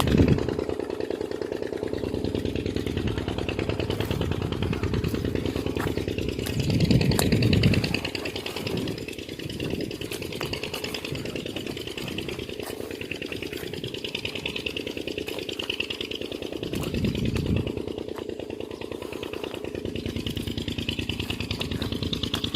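A small engine running steadily with a fast, even firing rhythm, swelling briefly louder twice, about seven and seventeen seconds in.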